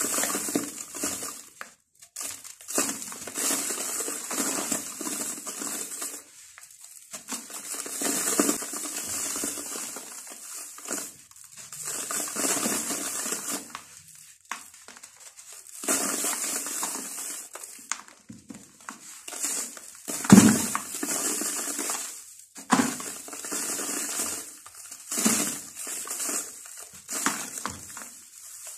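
Dry sand-cement clumps crushed and crumbled by hand in a plastic tub: soft gritty crackling and the hiss of falling powder, in bouts of a few seconds with short pauses. About two-thirds of the way in there is one louder knock.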